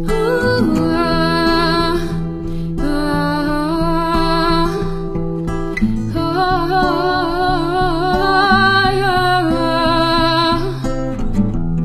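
Music without lyrics: strummed acoustic guitar under a held lead melody line that wavers with vibrato.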